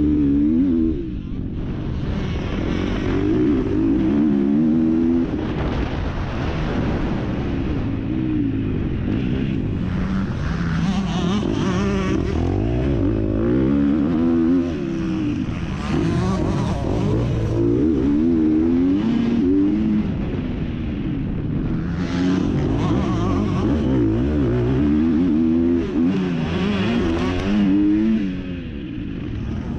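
MX2-class motocross bike engine revving hard, its pitch rising and falling over and over as the throttle is opened and shut, with short dips when it backs off.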